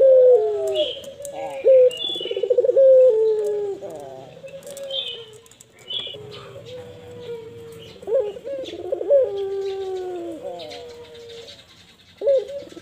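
Barbary dove (puter) cooing: repeated rolling, trilled coos that fall in pitch, in several bouts with a short lull in the middle. Faint high chirps sound now and then.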